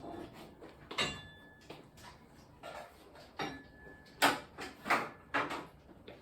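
A series of knocks and clatters as household items are handled and moved, with the loudest knock about four seconds in.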